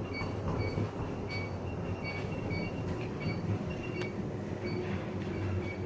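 Express elevator car travelling upward at speed: a steady low rumble inside the cab, with faint short high chirps repeating through it.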